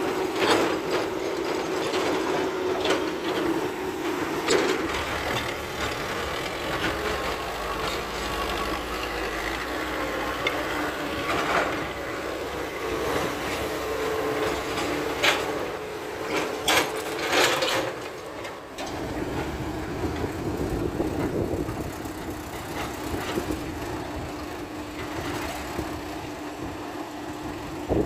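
Excavator and dump truck diesel engines running steadily with a held whine, and sharp clanks of rock and bucket striking. There is a cluster of loud clanks a little past the middle.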